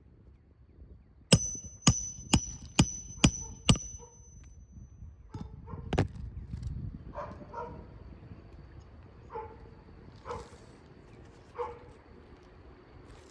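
Six hammer blows in quick succession, about half a second apart, each with a metallic ring, during a shingle repair. Then a dog barks about five times.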